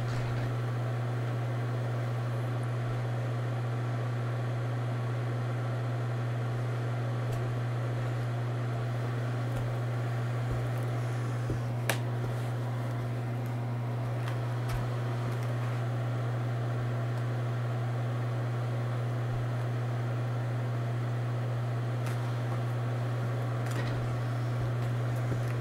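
A steady low mechanical hum that does not change, with a single sharp click about halfway through.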